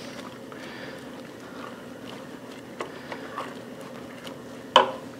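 Wooden spoon stirring thick, creamy risotto in a stainless steel pot: soft scraping with a few light taps against the pot, and one sharper knock just before the end, over a steady low hum.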